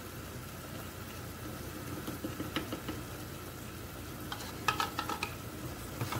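Grated carrots sizzling in a steel pot while a wooden spoon stirs them, with a few light clicks. A cluster of sharp metal clinks and scrapes comes about two-thirds of the way in, as a spoon scoops sweetened condensed milk from its tin.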